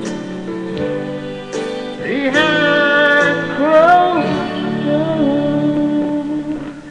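Country ballad backing track playing its closing bars after the vocal line, with held chords and a sliding melody; it fades away near the end.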